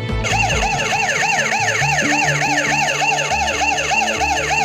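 Electronic security-alarm siren wailing fast, about four rising-and-falling sweeps a second, starting a moment in.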